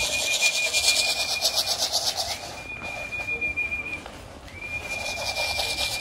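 Long, steady whistle calls repeated three times, each swooping up into one high held note, a handler's call to bring racing pigeons down to the loft. Under them a rapid rasping rattle, which drops away for a couple of seconds in the middle.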